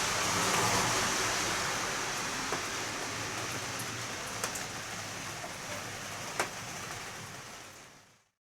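Rain falling steadily, a continuous hiss with a few sharp drip clicks, fading out about eight seconds in.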